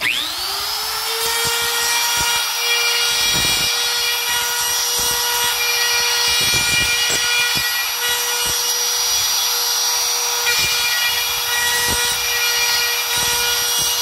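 Compact trim router switched on, its whine rising to full speed within about a second, then running steadily as it cuts a door-hinge mortise through a plastic hinge jig, going over the rounded corners of the recess. Light knocks and scrapes sound as the router base moves in the jig.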